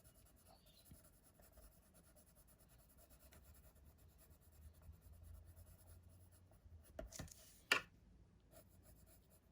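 Faint scratching of a watercolour pencil being worked over paper cardstock, with a couple of short, light clicks about seven seconds in.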